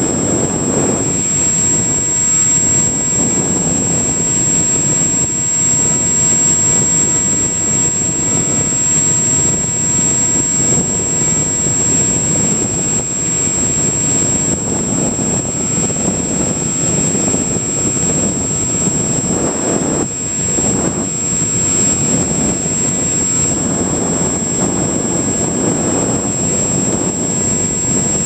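Onboard sound from a Multiplex EasyStar model glider in flight. Air rushes over the microphone along with the drone of its electric pusher motor and propeller. A steady high-pitched whine runs on top.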